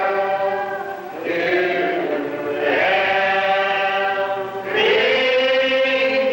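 Church congregation singing a hymn together in long, drawn-out notes, with short breaks between phrases about a second in and near four and a half seconds.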